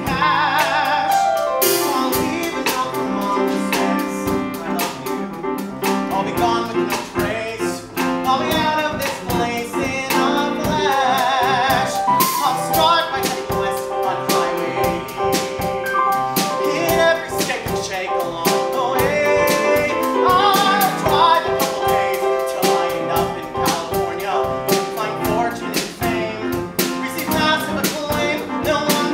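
A man singing a musical-theatre song with vibrato, accompanied by a grand piano and a drum kit keeping time on the cymbals.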